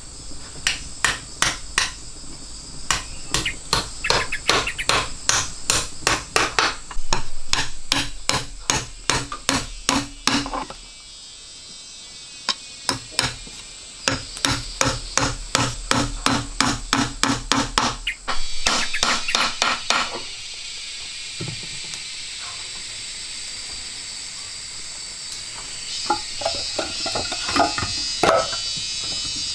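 Rapid, repeated strikes of a hand tool on wood, about three a second in long runs, with a pause partway through; they stop about two-thirds in, and a few softer knocks follow near the end. Insects keep up a steady high-pitched drone throughout.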